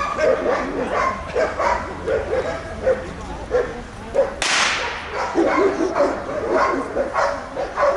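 Dogs barking and yelping over and over in short, rapid barks, with a brief sharp rushing burst about halfway through.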